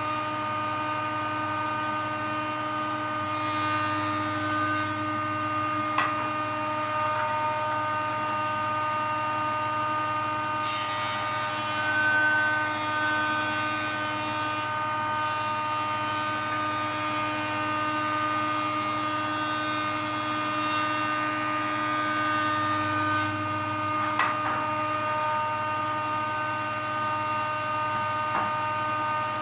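Woodworking jointer running with a steady motor whine while boards are fed across its cutterhead to clean up and square their edges: the hiss of the cut comes and goes with each pass, strongest from about a third of the way in to about three-quarters through. Two sharp knocks, one about six seconds in and one near the end, stand out over the machine.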